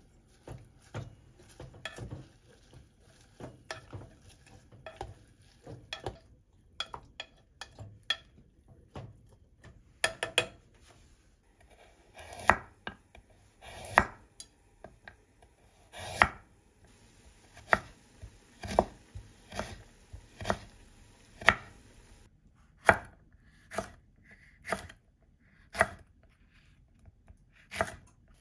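A santoku kitchen knife slicing carrot and green pepper on a wooden cutting board, the blade knocking sharply on the board about once a second. Before that, for about the first ten seconds, light irregular taps of a wooden spatula stirring greens in an enamel pot.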